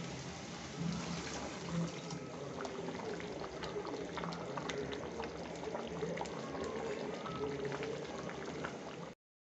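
Mutton curry cooking in a steel pan on the stove: a steady crackle and bubble of the gravy with many small pops. The sound cuts off abruptly near the end.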